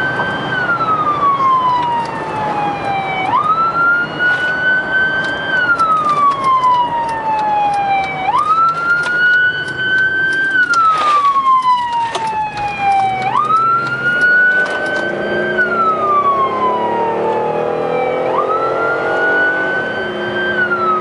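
Emergency vehicle siren wailing from the responding vehicle. Each cycle jumps up quickly, holds briefly, then slides slowly down, repeating about every five seconds.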